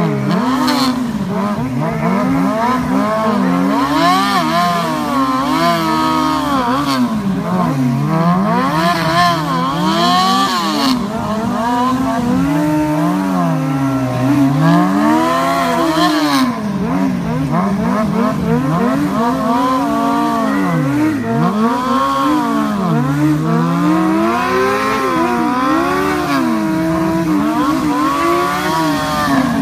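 Two sport motorcycle engines revving up and down over and over, the pitch rising and falling every second or two, as the bikes pull against a man holding straps.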